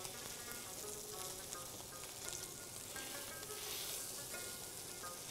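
Trout fillets searing skin-side down in hot olive oil in a nonstick frying pan: a steady sizzle that swells a little near the end.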